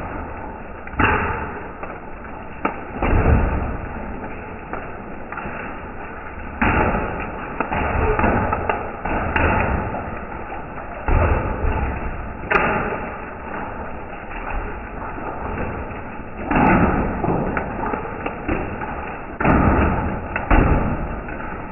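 Hail and rain striking a concrete patio, the audio slowed down with the slow-motion footage, so the patter blurs into a dull, continuous rush that surges louder every few seconds.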